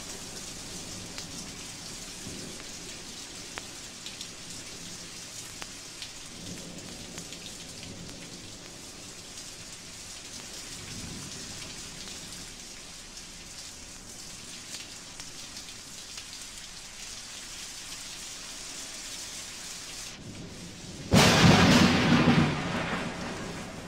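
Thunderstorm recording played from a 1956 vinyl record: steady rain with a few low rumbles of thunder, then a sudden loud thunderclap about 21 seconds in that rumbles away over a couple of seconds.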